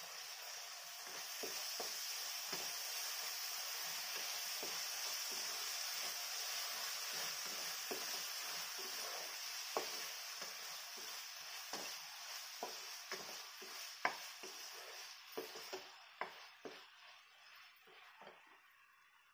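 Paneer and vegetables sizzling in a non-stick kadai while a spatula stirs them, knocking and scraping against the pan many times. The sizzle dies away over the last few seconds.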